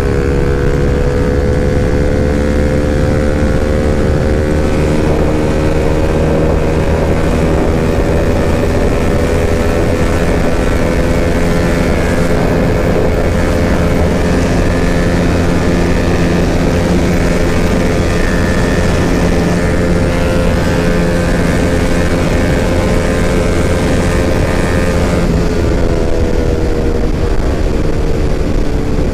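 Bajaj Pulsar RS200's single-cylinder engine held at high revs at full speed, about 145 km/h, with heavy wind rush. The engine note creeps up slowly, holds steady, then falls near the end.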